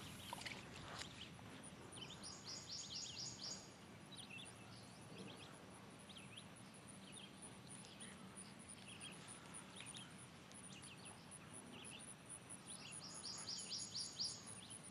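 Faint outdoor ambience at a lakeshore: scattered bird chirps over a steady, high, pulsing insect call. Two short rapid trills stand out, about two seconds in and again near the end.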